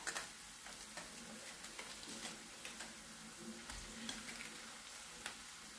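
Onions frying in melted butter in a frying pan, sizzling steadily with scattered small crackles as raw shrimp are laid into the hot pan.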